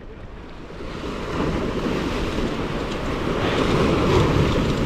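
Surf washing against a rock jetty, with wind buffeting the microphone: a steady rushing that swells about a second in.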